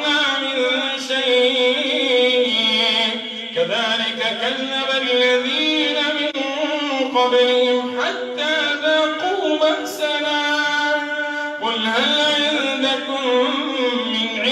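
A man reciting the Quran in a melodic chant, amplified through a mosque microphone, in long held phrases with three short breaks for breath.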